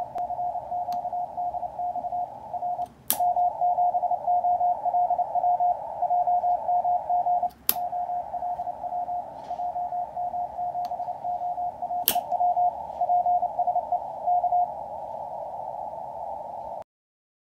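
Morse code (CW) signal on the 40 m band received through an Elecraft KX2 transceiver: a keyed tone in dots and dashes over narrow-filtered band hiss. The antenna switch clicks three times, about three, seven and a half and twelve seconds in. Each click brings a brief dropout, and the signal comes back louder, then weaker, then louder as the receiver is switched between the two antennas. The keying stops about fourteen and a half seconds in, leaving only hiss, which cuts off near the end.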